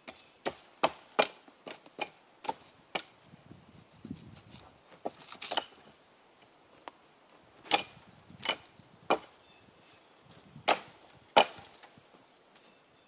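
Wood being chopped by hand: about fifteen sharp blows in irregular runs with short pauses between them.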